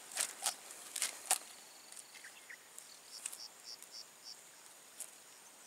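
A few short sharp clicks in the first second and a half, then an insect in the streamside grass chirping in short high pulses, about three a second, for a second or so.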